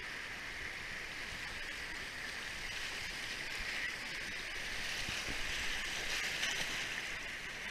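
Creek water rushing over shallow rocky rapids close to the microphone: a steady rush of white water that swells a little past the middle.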